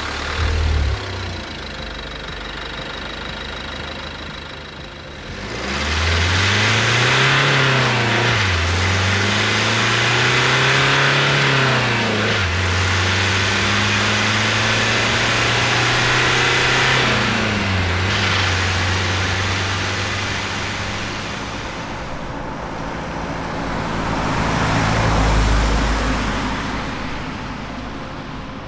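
Renault Master III van's diesel engine idling, then pulling away. It climbs in pitch through two gear changes, runs steadily at speed, eases off, and swells once more near the end before fading.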